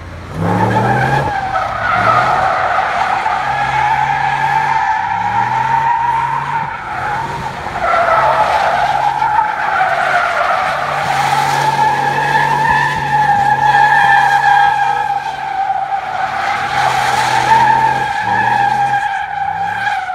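A car's tyres squealing without a break as it spins donuts, the squeal wavering in pitch, over the engine held at high revs that drop and climb again a few times.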